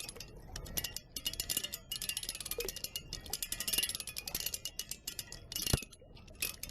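Rapid irregular clicking and clinking with faint metallic ringing, from a turning water wheel's paddle mechanism, with one sharper knock near the end.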